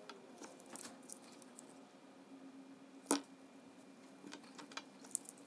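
Small clicks and taps of wire leads and capacitor parts being handled on a workbench during soldering, with one sharper click about three seconds in and a few more near the end, over a faint steady hum.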